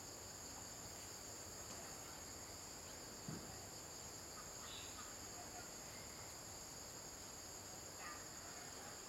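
Steady, faint high-pitched insect chorus droning in several even bands, with a single soft knock about three seconds in and a few faint short chirps.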